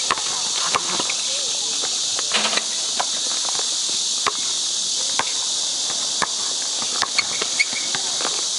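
A steady, dense, high-pitched insect chorus from the surrounding trees, with irregular sharp knocks of a basketball bouncing on the outdoor hard court several times.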